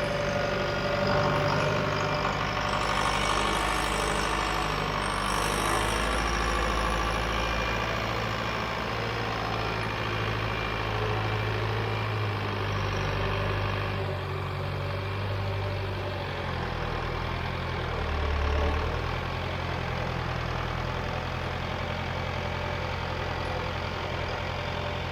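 John Deere 410 backhoe's engine running steadily, with a brief swell in level about three-quarters of the way through.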